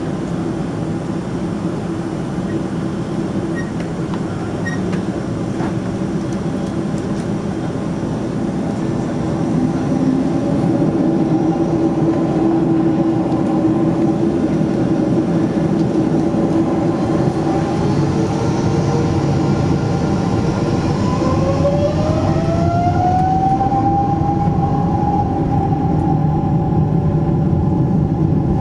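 Boeing 777-200ER turbofan engines heard from inside the cabin: a steady low hum and rumble at low thrust, then a rising whine about two-thirds of the way through as the engines spool up to takeoff thrust, holding a higher pitch afterwards.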